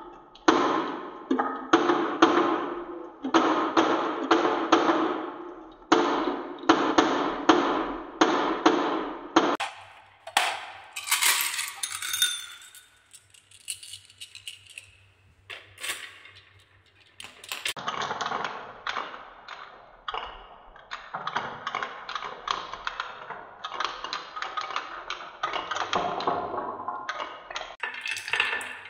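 Glass marbles rolling down wavy wooden marble-run tracks, a rattling roll that swells and fades over each wave. About ten seconds in, marbles clink sharply against one another, as in a handful of marbles. Then the rolling rattle starts up again, with more clinks near the end as marbles circle a spiral track.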